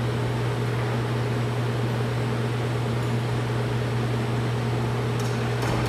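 Steady low machinery hum, a constant drone with fainter higher tones and an even hiss over it, with a couple of faint ticks near the end.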